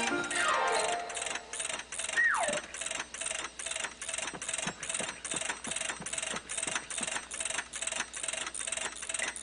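Cartoon sound effect of a giant ratchet wrench clicking steadily as it turns a huge nut, about three clicks a second. A run of notes falls in pitch at the start, and a whistle-like tone slides down about two seconds in.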